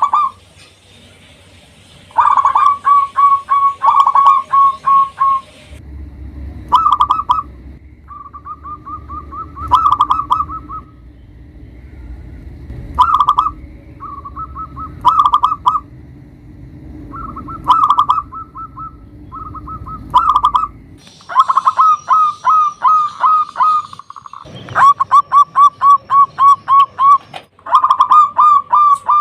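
Zebra dove (perkutut) in full song, cooing repeated phrases of quick, rippling staccato notes, a new phrase every one to two seconds. For much of the middle stretch a low rumble runs underneath.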